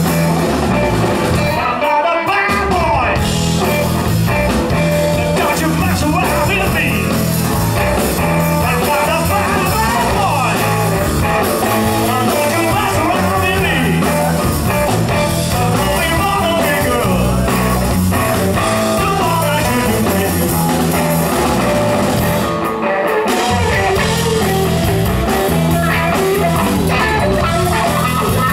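Live rock band playing: electric guitar, bass guitar and drum kit. The band drops out briefly twice, about two seconds in and again late on.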